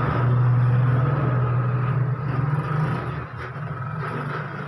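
A low, steady engine hum, louder for the first two seconds or so and then easing off.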